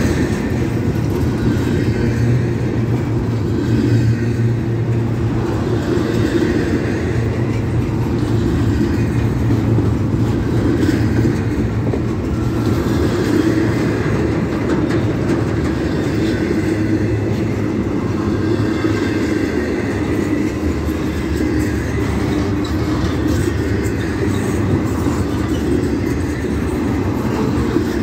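Double-stack intermodal freight train's container-laden well cars rolling past close by: a steady, loud rumble of steel wheels on the rails.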